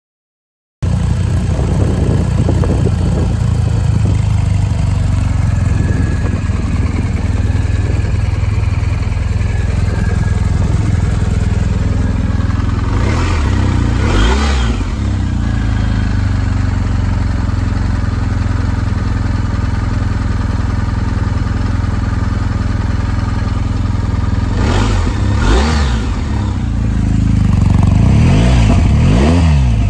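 BMW R1250 GS Adventure's 1254 cc boxer twin idling in neutral, with the throttle blipped briefly a few times (around the middle and near the end), each rev rising and falling back to idle. It grows a little louder near the end.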